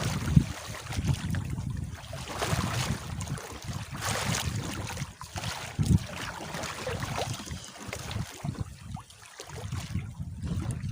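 Wind buffeting the microphone and water sloshing against a small boat, with a few sharp knocks, one just after the start and a louder one about six seconds in.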